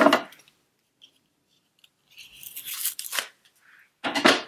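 Paper and thin white card rustling and tearing as a small perfume-sample box is unwrapped and opened by hand, in three short scratchy bursts: one at the start, a longer one around the middle and a sharp one near the end.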